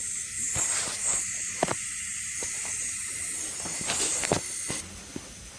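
Refrigerant hissing as it rushes through the charging hose into a system just pulled down to a deep vacuum: a steady high hiss that stops near the end, with a few light clicks.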